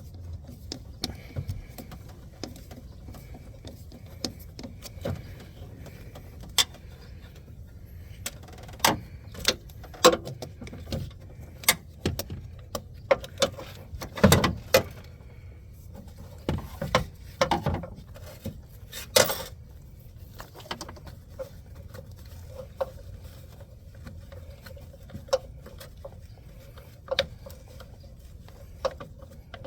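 Irregular clicks, taps and knocks of hand work around a van's newly fitted plastic coolant reservoir, as tools and parts are handled, most frequent in the middle stretch.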